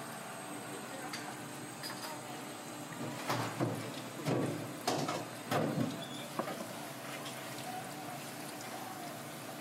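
Kitchen knife cutting and knocking against a cutting board while working on a sea snake: a handful of short knocks and scrapes about three to six seconds in, over a steady kitchen hum.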